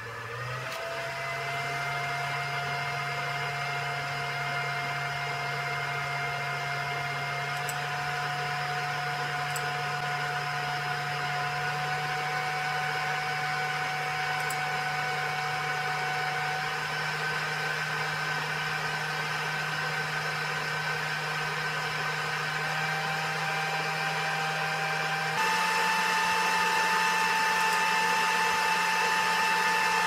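Supermicro 1U server's cooling fans ramping up under a full-CPU Prime95 stress test: a steady whine that rises in pitch about a second in and keeps creeping higher. About 25 seconds in it jumps to a louder, higher-pitched speed.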